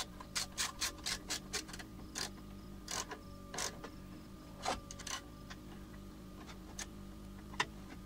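Socket ratchet clicking as it tightens a nut on a battery cable connection: a quick run of clicks, about four a second, for the first second and a half, then slower scattered clicks.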